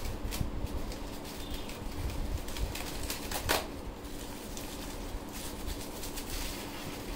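Plastic wrapping crinkling and crackling, with light scrapes on a polystyrene packing tray, as wrapped statue parts are handled and lifted out; one louder crackle comes about three and a half seconds in.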